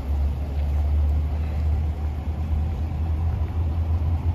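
Chevrolet Silverado 1500 pickup idling, a steady low rumble.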